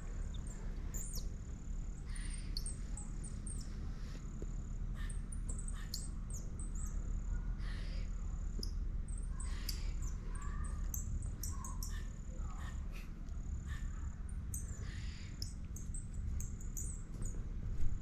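A small handheld bird call squeaked in short, high chirps that come every second or so, irregularly. A steady high insect trill starts and stops in the background.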